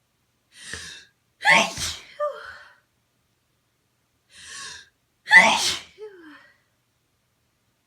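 Two powerful sneezes, about four seconds apart, each preceded by a sharp intake of breath. They are induced by tickling the nose with rolled-up tissue.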